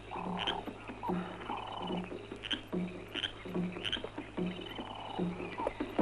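Rainforest frogs croaking in a steady repeated rhythm, a little more than once a second, with short high chirps over them.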